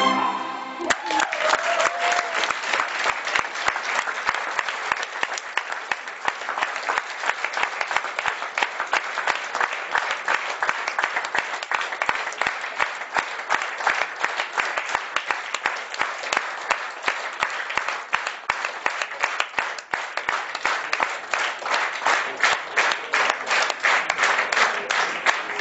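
A violin piece ends on its last note about a second in, and an audience breaks into sustained applause, which turns into more even, rhythmic clapping near the end.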